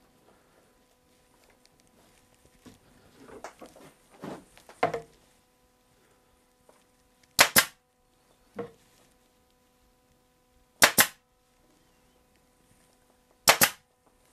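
Pneumatic upholstery stapler firing three times, a few seconds apart, each shot a sharp double crack, driving staples through the dust-cover fabric into the wooden seat frame. Before the first shot there is soft rustling as the fabric is smoothed and folded.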